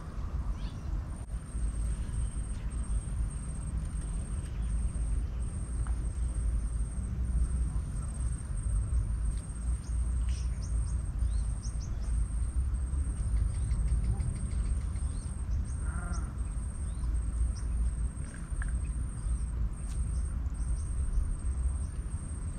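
Outdoor riverbank ambience: a steady low rumble like wind on the microphone, with faint short bird-like chirps now and then and a faint high-pitched pulsing tone throughout. A brief pitched animal call stands out about two-thirds of the way in.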